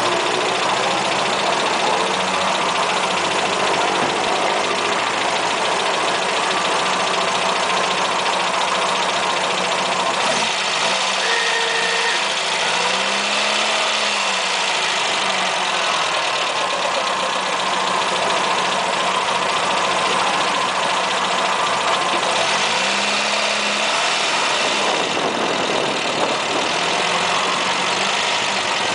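A 1980 Ford Fiesta Supersport's engine idling steadily, heard close to the camera, with two brief rises and falls in pitch, one about halfway through and one near the end.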